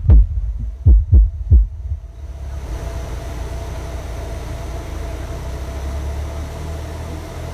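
Deep bass thumps from an outdoor-cinema loudspeaker rig during a sound test, each dropping in pitch, two or three a second. They stop about two seconds in, leaving a steady hiss and low hum.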